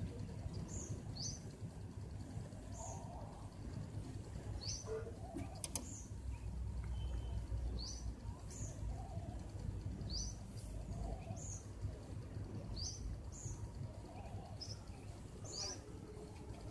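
A bird chirping over and over, short high chirps about every second or so, over a steady low background hum.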